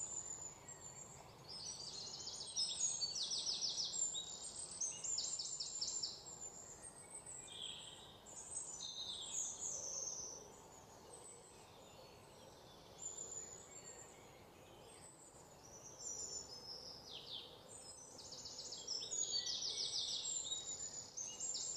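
Songbirds chirping and singing high, rapid trills, several calls overlapping, busiest near the start and near the end with a quieter stretch in the middle, over a faint steady hiss.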